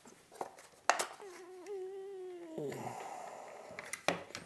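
Plastic clicks and light rattling of a screwdriver-bit case being opened and handled, with a brief wavering hum of one pitch lasting over a second between the clicks.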